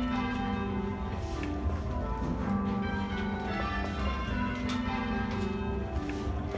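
Church bells being rung in change ringing, one bell striking after another in a steady, continuous sequence, each note ringing on under the next.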